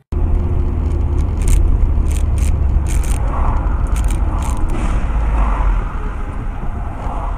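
A car's engine and road noise heard from inside the cabin through a dashcam's microphone: a steady low rumble as it drives along, with a few sharp clicks or rattles in the first few seconds.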